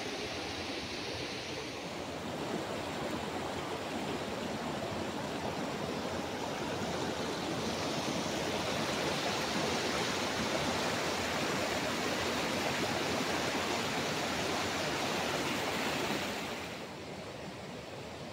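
The Amprong River's flowing water, a steady rush that drops off sharply near the end.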